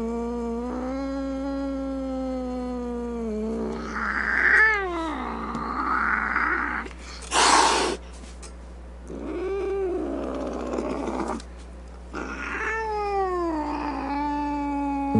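Domestic cat yowling in long drawn-out calls, one after another; some slide down in pitch and one rises and falls. A short, loud noisy burst comes about halfway through.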